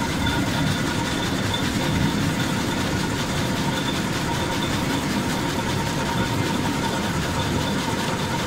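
Coffee cherry processing machinery running steadily: a constant low mechanical rumble with a few thin steady higher tones over it, and a fine rattle of wet coffee beans and pulp pouring off the chute onto the mesh screen.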